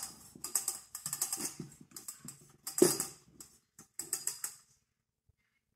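Oiled pizza dough being turned and pressed by hand in a stainless steel bowl: an irregular run of soft, sticky squelches and clicks that stops about three-quarters of the way through.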